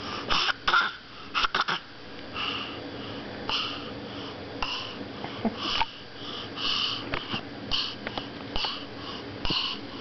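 Baby making breathy huffs and pants, a short puff of breath roughly once a second. A few sharp knocks come in the first couple of seconds.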